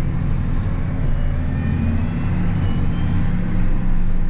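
Large farm tractor's diesel engine running steadily, heard from inside the cab as the tractor drives slowly.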